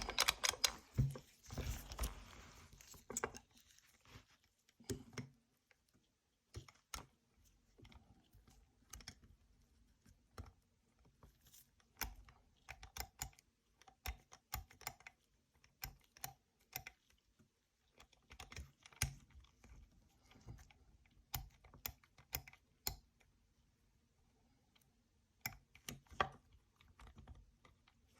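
Master Lock key safe being worked open by hand: scattered small clicks and light metallic scrapes from its lock mechanism, busier in the first few seconds.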